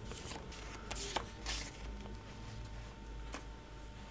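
Paper photographs rustling and sliding against each other as a hand leafs through a stack of them, in a few short, scattered rustles, most of them in the first second and a half.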